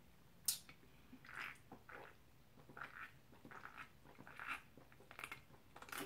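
A sharp click as a soda can is picked up, then soft gulps and swallows of drinking from the can, several of them spaced about half a second to a second apart.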